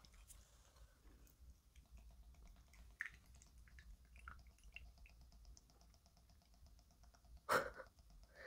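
Mostly very quiet: a few faint plastic clicks and a faint, even whirr from the middle on as the miniature toy drink dispenser is pressed and slowly dispenses. A short breathy sound comes near the end.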